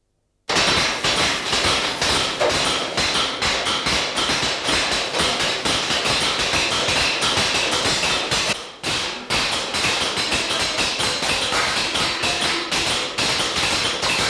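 Several hand hammers striking bronze cymbal blanks on wooden stumps: a dense, irregular clatter of metallic blows, several a second, with ringing between them. It starts abruptly about half a second in and briefly thins out about two-thirds of the way through.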